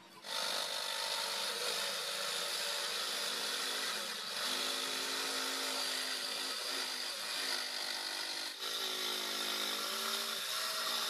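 Corded electric jigsaw cutting a curve through a plywood sheet. The motor whine starts a moment in and runs with the pitch shifting as the blade works the wood, with two brief dips.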